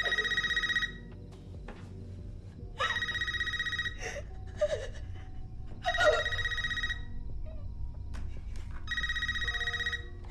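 A phone ringing with an electronic trilling ring: four rings, each about a second long, about three seconds apart.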